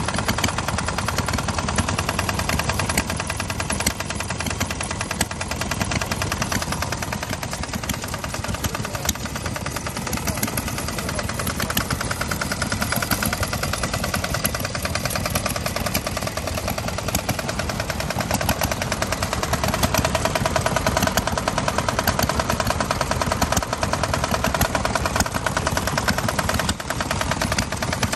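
Yanmar L35 air-cooled single-cylinder diesel engine running steadily, its firing strokes a rapid, even beat.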